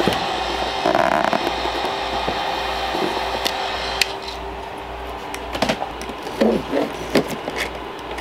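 A package being handled and opened: a scraping, tearing noise about a second in, then scattered clicks and knocks, over a steady background hum.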